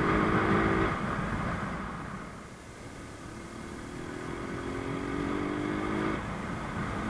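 Rusi Gamma 200 motorcycle engine heard from the saddle while riding, over steady wind and road noise. The engine pitch rises steadily as it accelerates from about three seconds in, then drops away suddenly about six seconds in as the throttle closes.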